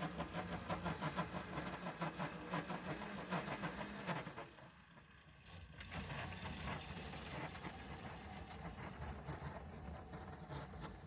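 Small ride-on railroad locomotive's engine running with a steady hum and fast regular pulsing; it drops away for a moment about four seconds in, then runs on.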